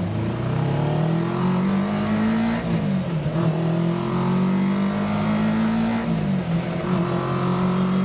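1986 Pulse Litestar's engine pulling under acceleration, its pitch rising, then falling as it shifts up a gear, twice (about three and six seconds in), and climbing again. It runs smoothly, sounding healthy.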